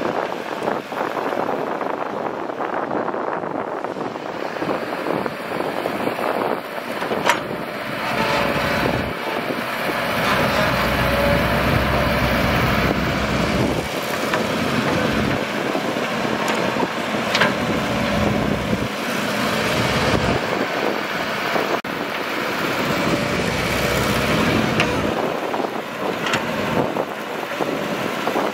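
Caterpillar tracked excavator's diesel engine working under load as it digs dry soil and loads a dump truck. The engine swells deeper and louder for stretches of several seconds, with a few sharp knocks along the way.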